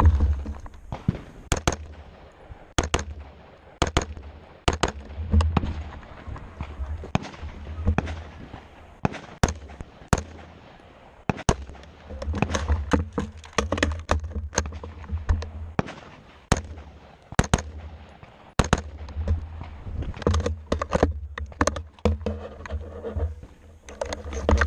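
AR-15 rifle firing a string of single shots, roughly one to two a second, coming faster for a stretch near the end.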